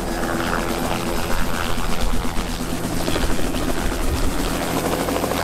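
Light turbine helicopter lifting off and climbing low overhead: a steady engine tone under the rapid beat of the main rotor blades.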